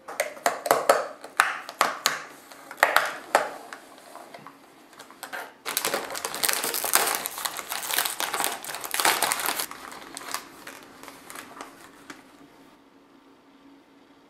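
Plastic candy-kit packaging handled and torn open by hand: a run of sharp crackles, then about four seconds of dense plastic crinkling as the bag is torn apart, thinning to a few light crinkles before it stops near the end.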